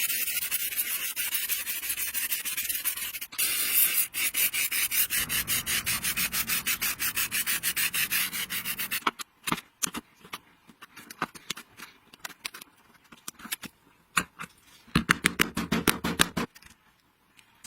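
Rapid back-and-forth rubbing strokes on a metal part, about five a second, steady for the first nine seconds, then sparser and quieter with a louder spell near the end.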